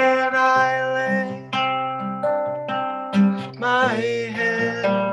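Acoustic guitar strummed with a man singing along, holding long notes, with one sung note bending in pitch about four seconds in.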